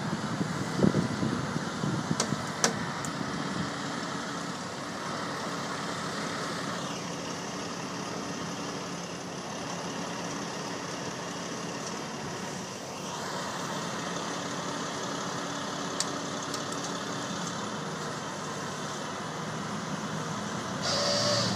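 Heavy tow truck's diesel engine idling steadily, with a car driving past close by around the middle and a few light clicks.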